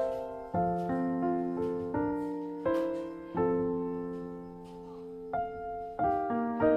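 Background music: slow, gentle solo piano, notes and chords struck and left to ring and fade.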